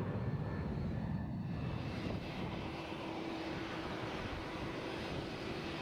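Twin-engine jet airliner engines: a steady rumble from a jet climbing out. About two seconds in it changes to a Boeing 787-8 Dreamliner's engines on the runway, with a steady humming tone over the noise.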